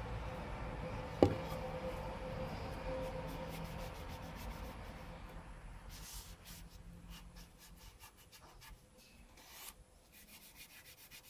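A cloth rubbing finish into a meranti wood board by hand, in soft scraping strokes that grow fainter toward the end. There is one sharp knock about a second in.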